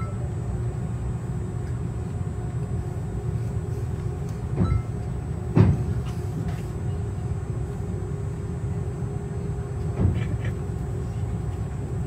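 Jet airliner cabin noise while the plane rolls on the ground: a steady low rumble with an engine hum, and three short thumps from the plane rolling over the pavement.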